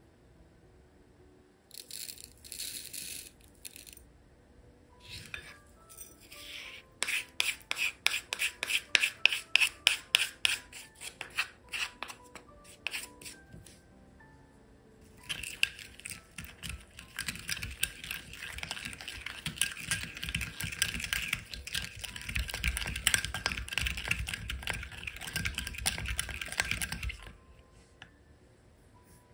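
Wooden spoon clicking against a small glass bowl as sauce ingredients go in, then stirring a thick gochujang sauce in the bowl for about ten seconds, a dense scraping and sloshing. Soft background music plays under it.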